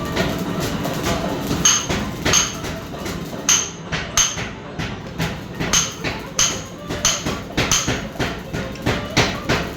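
Mechanical power hammer (forging hammer) running, its ram striking in a steady rhythm over a continuous mechanical clatter. From about two seconds in, the heavy blows ring out clearly, about one and a half a second.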